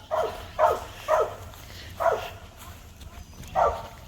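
A dog barking repeatedly: four short barks, spaced unevenly.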